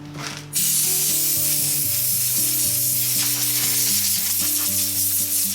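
A loud, steady hiss that starts abruptly about half a second in and stops abruptly at the end, over background music.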